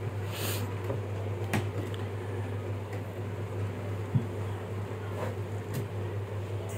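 Steady low hum with faint scrapes and rustles of a styrofoam packing piece and cardboard carton flaps being handled, and a single light knock about four seconds in.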